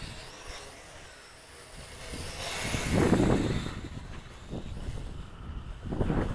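Wind gusting across the microphone: a low rumbling buffet that swells strongly about three seconds in, eases, then builds again near the end.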